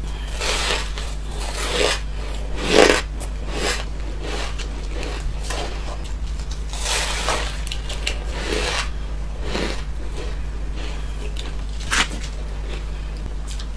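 A person biting and chewing dry, powder-coated refrozen ice: a string of irregular crisp crunches, the loudest about three seconds in, with a sharp crack near the end. A steady low hum runs underneath.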